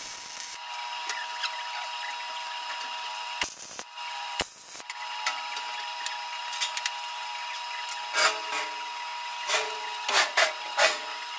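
Wire-feed welder arc crackling and buzzing as seams in a 16-gauge cold rolled steel box are welded, over a steady hum. About eight seconds in come several loud clanks of sheet-steel panels being handled.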